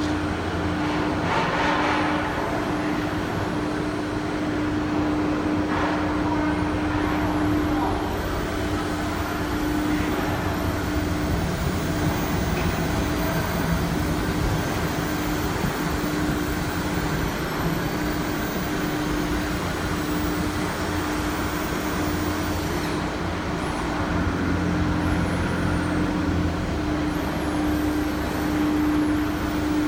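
CNC router with HSD spindles running, a steady hum at one pitch over continuous machine noise.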